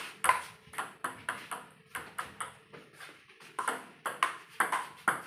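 Table tennis rally: the ping-pong ball clicking rapidly off the table and the players' bats, several hits a second.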